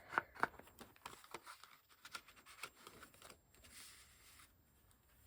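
Paper and card being handled: a few sharp taps and crinkles in the first half second, scattered rustling, then a soft sliding scrape just under a second long near the end, as a card strip is slid into a waterfall-tab mechanism.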